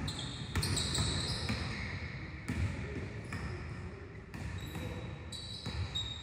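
Basketballs bouncing on a hardwood gym floor in irregular knocks, with short high sneaker squeaks from players cutting on the court.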